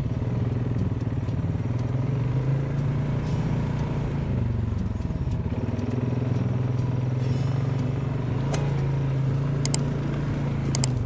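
ATV engine running steadily under way, its pitch swelling and easing slightly, with a few sharp ticks near the end.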